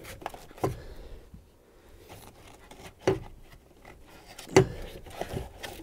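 Knocks and clicks of hand tools and metal parts being worked at a trailer-hitch bracket under a car's cargo floor, with three louder sharp knocks spaced about a second and a half apart.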